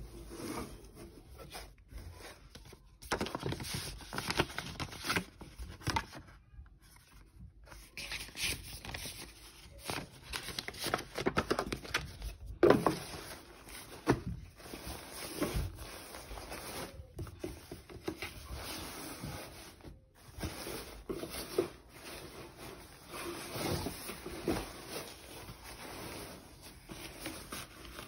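Nylon shell of a Canada Goose Alliston down jacket rustling and rubbing as hands unfold and handle it, in irregular bursts with a short pause about six seconds in.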